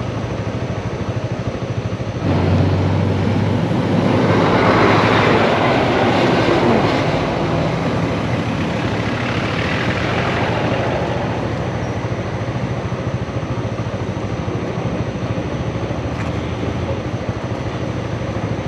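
Motorcycle engine running on the road. About two seconds in it gets louder as the bike moves off, with a rush of wind noise that peaks a few seconds later before settling into steady riding.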